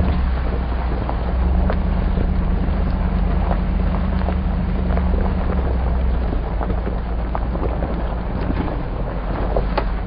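Hummer H2's V8 engine running steadily while driving on a dirt and gravel road, heard from inside the cabin. Tyre and road noise runs under it, with scattered short knocks and rattles from bumps.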